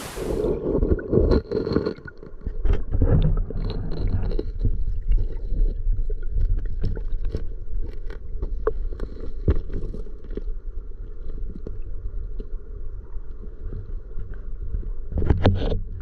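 Mountain creek heard underwater: a muffled, low rush of flowing water with many small clicks and taps scattered through it, and a louder burst of noise near the end.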